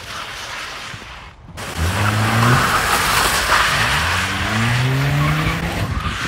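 Chevrolet Cobalt coupe sliding in circles on wet pavement, its tyres hissing through the water while the engine revs, climbing in pitch twice. There is a brief drop-out about a second in.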